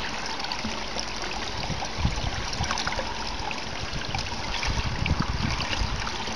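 Floodwater running steadily down through a storm drain grate, with small splashes as a hand works in the water clearing debris from the grate. Low rumbles on the microphone come and go from about two seconds in.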